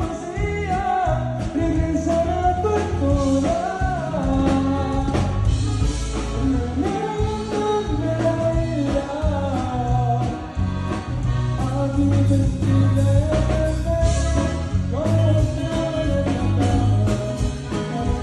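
Live band music led by a button accordion playing a melody over a steady bass and drum beat.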